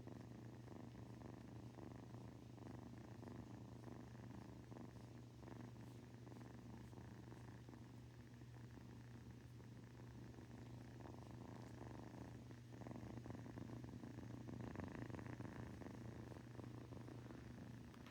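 Domestic cat purring steadily and softly, close up, growing a little louder past the middle.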